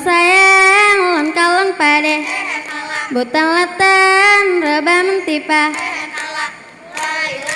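A single female voice singing the vocal line of a Saman dance: long held notes, ornamented and wavering, in several phrases with short breaks. A few sharp claps come in, the clearest about four seconds in and several more near the end.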